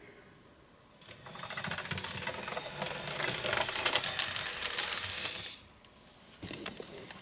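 OO gauge model tank locomotive running on the track, its wheels rattling and clicking rapidly over the rail joints and points. The clatter builds for about four seconds and stops suddenly.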